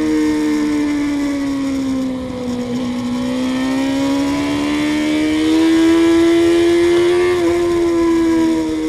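Suzuki GSX-R inline-four sport-bike engine heard onboard at a track day, with wind noise. The note drops as the rider slows into a corner, then climbs steadily under acceleration out of it, with a brief break about seven seconds in, like a quick upshift.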